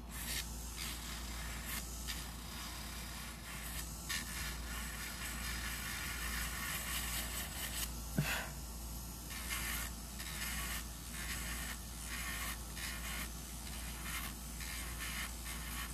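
Electric nail drill bit grinding down the thickness of an acrylic nail: a scratchy rasp that comes and goes in short strokes as the bit touches and lifts off the nail. A short rising squeak about halfway through.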